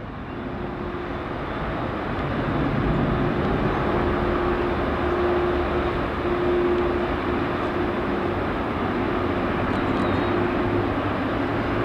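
Jet engines of a British Airways Boeing 777 passing on the ground, a steady engine noise with a held low hum. It grows louder over the first couple of seconds, then holds level.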